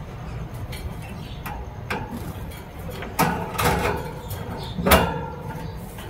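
A plastic feed cup being slid into its holder through the side of a wire bird cage. A few light clicks come first, then louder metallic rattles of the cage wire and its sliding cup door at about three and five seconds in.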